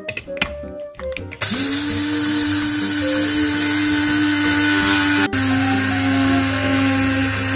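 Electric blade grinder grinding golden flaxseeds into meal: a few handling clicks, then a steady motor whine starting about a second and a half in. It cuts out for an instant about five seconds in and runs on at a slightly lower pitch.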